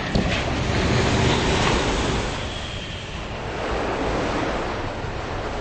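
Sound-effect rush of churning sea water after a ship's funnel crashes down: the wash of the splash, a dense, steady noise that eases a little partway through.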